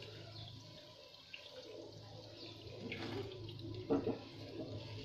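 Fried malpuas being dropped into a pan of sugar syrup: soft liquid splashes about three and four seconds in, over a faint steady low hum.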